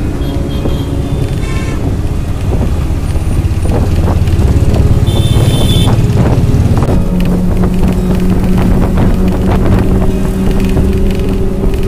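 Traffic and road noise heard from a moving vehicle: a loud, dense low rumble of engines and tyres with wind. There is a brief high-pitched tone about five seconds in, and a steady engine hum sets in about seven seconds in.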